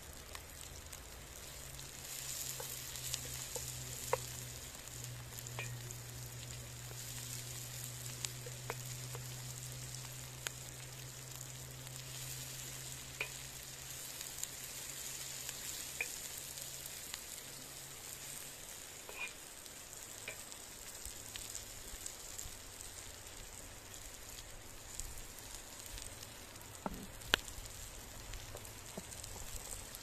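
Chopped vegetables and peppers sizzling steadily in oil in a wide black pan over a wood fire. The sizzle gets louder about two seconds in, and scattered sharp clicks and taps come through it.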